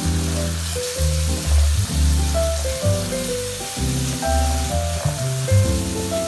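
Background music with a melody and bass line over the steady sizzle of red chili paste and chopped garlic frying in oil in a wok.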